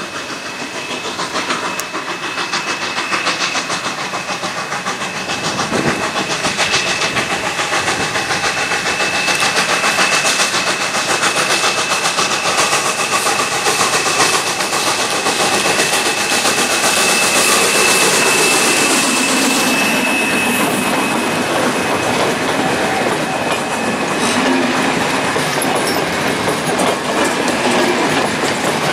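Steam locomotive Energie 507 approaching and passing with a train of passenger coaches, growing louder, then the coaches rolling by with wheels clattering over rail joints. A steady high-pitched tone sounds through most of the pass and stops about two-thirds of the way in.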